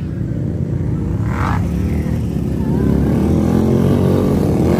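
ATV and side-by-side engines running under load, their revs climbing in pitch from about three and a half seconds in.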